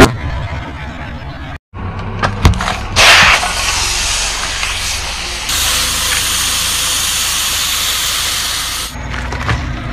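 An aerosol spray can bursting under a car tyre with a sudden loud blast about three seconds in, then its contents hissing out steadily for about six seconds. A hard crunch of lollipops crushed under the tyre comes at the very start.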